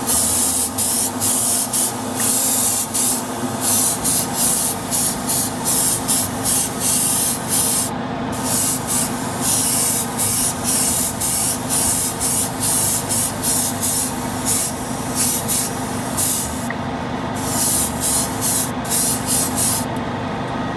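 Airbrush spraying clear coat in short, rapid bursts of hiss, roughly one or two a second, stopping just before the end, over a steady low hum. It is a light, grainy mist coat (zara-buki) laid over fresh decals to seal them without soaking them.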